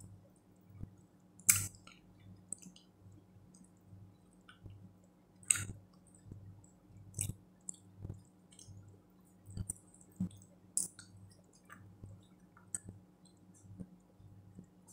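Close-miked chewing and wet mouth smacks from a person eating with her fingers, with a sharp click or smack every few seconds. A faint steady hum runs underneath.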